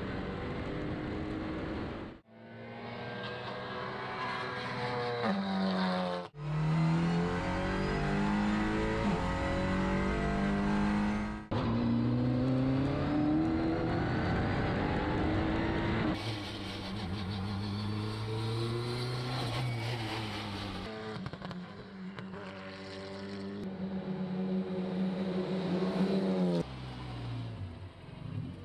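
CUPRA Leon Competición race car's turbocharged four-cylinder engine at full throttle on track, its pitch climbing through each gear and dropping at the shifts. The sound breaks off and restarts abruptly several times.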